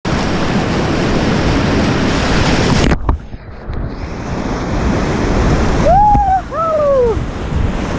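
Whitewater rapids rushing loudly around a kayak, with water splashing over the boat-mounted camera. About three seconds in, the sound turns suddenly muffled as the camera goes under the water. Two short falling whoops from the paddler come near the end.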